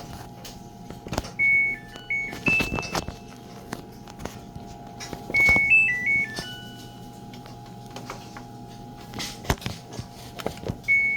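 Samsung Agasarang washing machine's control panel playing a short electronic beep melody of stepping high notes, twice, with a third starting at the very end, between sharp clicks of its buttons being pressed while entering test mode. A steady faint hum runs underneath.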